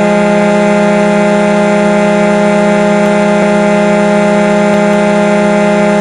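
Hockey goal horn sounding one long, steady blast.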